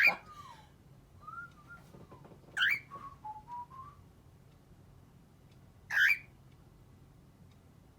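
Cockatiel whistling a few soft gliding notes, broken by loud, sharp rising chirps at the start, about two and a half seconds in and again about six seconds in.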